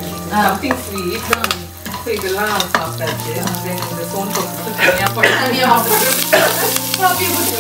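Whole spices and green chilli sizzling in hot oil for a salna tempering, stirred in the pan with the clicks of a spoon; the sizzle grows louder about six seconds in. Background music plays underneath.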